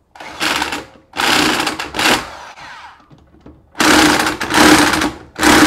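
Half-inch Chicago Electric impact wrench hammering the mower's blade bolt tight in four short bursts, with a pause in the middle.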